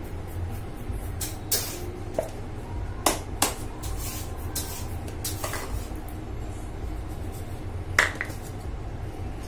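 A few short hissing bursts and small clicks from a hand colour sprayer tinting a piped whipped-cream flower purple, over a steady low hum, with a sharp click near the end.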